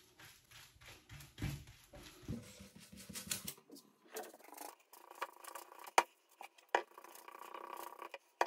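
Handling noises, rustling, rubbing and small clicks, as violet shampoo is put onto and worked into a bleached hair strand. A sharp click about six seconds in is the loudest sound.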